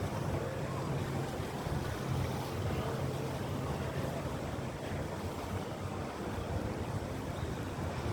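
Motorboat engine running steadily at low revs, a low hum, with wind noise on the microphone and water.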